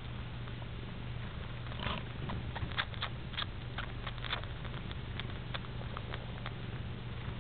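Cat purring steadily, with a run of small wet clicks from a grown tom cat suckling at another cat's belly, a cat that has never been weaned. The clicks come thickest between about two and four and a half seconds in.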